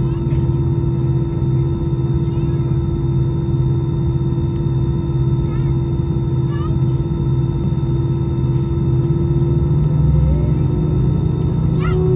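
Airbus A320 jet engines at low power, heard inside the cabin over the wing: a steady drone with a low hum and several steady whining tones. Near the end one of the tones rises slightly.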